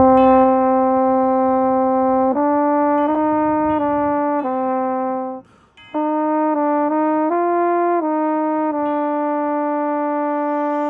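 Mellophone played right at the bell: a slow melody of held notes, with a short breath break about halfway through.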